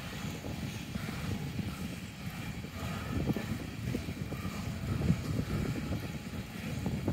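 Freight cars rolling past: a steady low rumble of steel wheels on the rails, with frequent clicks and clunks and one sharper knock about five seconds in.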